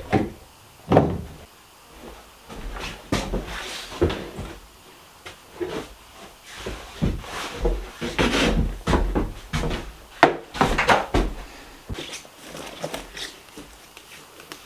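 A run of knocks, clunks and scrapes from tools being handled and set down on a wooden table in a small room, the sharpest knock about a second in.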